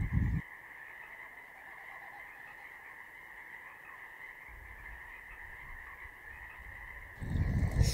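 Steady chorus of frogs calling, a continuous high-pitched trill. A loud noisy rush cuts in briefly at the very start and again near the end.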